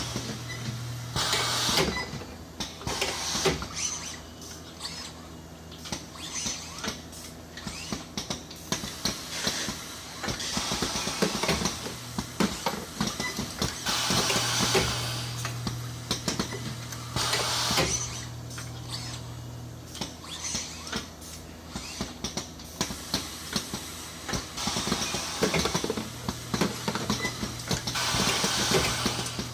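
Robotic assembly and resistance welding machinery at work: many mechanical clicks and clanks, several short bursts of air hiss, and a low electrical hum that switches on and off.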